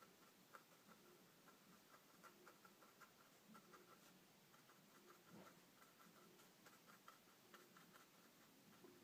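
Near silence, with faint, irregular light ticks of a small paintbrush dabbing paint onto the painting.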